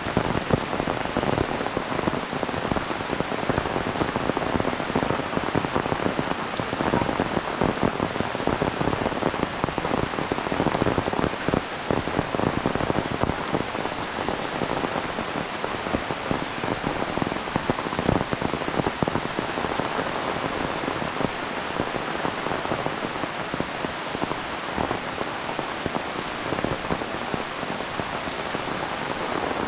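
Heavy rain falling steadily, a dense patter of drops hitting the ground and nearby surfaces.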